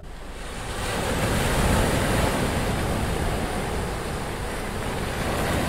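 Ocean surf: one wave washing in, swelling over the first second or two and then slowly drawing back.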